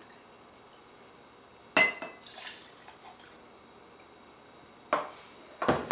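Glass clink that rings briefly about two seconds in, a faint splash just after, and a few light knocks near the end. This is glassware being handled as apple brandy is tipped from a small measuring glass into a mixing glass.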